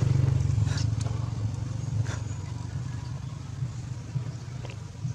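Low engine rumble, fading gradually, with a few faint clicks.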